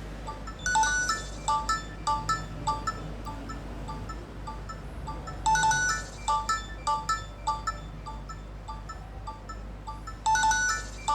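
A Nokia 3110 classic's loudspeaker playing a Nokia 6100 ringtone: a short phrase of quick, bright electronic notes that loops, starting three times with a pause after each.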